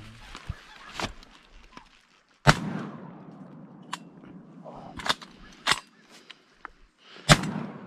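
Two loud 12-gauge shotgun shots about five seconds apart, each trailing off in an echo, with smaller sharp clacks between them.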